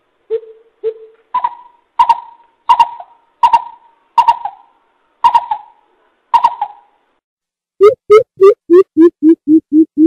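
Coucal calls (bìm bịp) played as a lure: hollow hooting notes, two low ones, then a row of higher notes spaced under a second apart, breaking near the end into a fast run of deeper notes about three a second.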